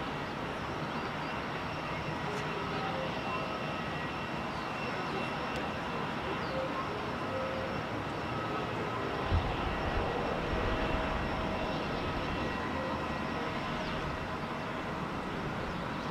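A distant Airbus A330-300's GE CF6-80E1 turbofans at takeoff power during the takeoff roll: a steady broad rumble with a faint high whine. A low thump about nine seconds in.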